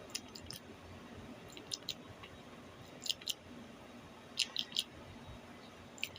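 Someone chewing a crunchy cookie: faint, crisp crunches in short groups of two or three, about every second and a half.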